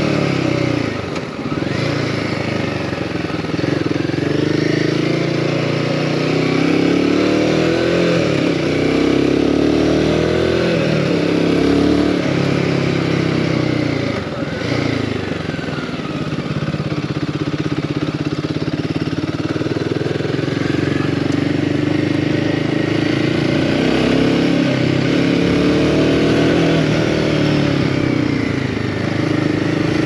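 Royal Enfield Himalayan 450's 452 cc single-cylinder engine being ridden, its pitch rising and falling over and over as the throttle is opened and closed, with brief drops about a second in and about halfway through.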